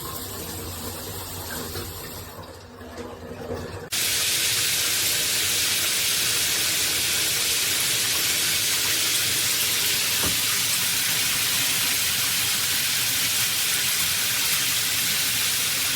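Water spraying from a shower head: a steady, even hiss of spray that starts abruptly about four seconds in, after a few quieter seconds.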